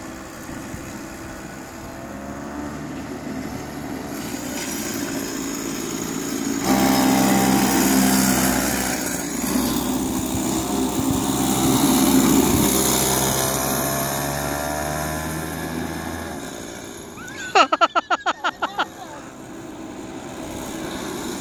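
Small go-kart engine running, its pitch rising and falling with the throttle; it grows louder as the kart passes close about seven seconds in and fades after about sixteen seconds. Near the end, a brief burst of a person's voice in quick pulses.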